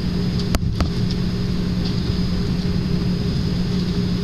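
Airbus widebody airliner taxiing, heard from inside the cabin: a steady engine drone with a thin high whine over it. Two sharp clicks about half a second in.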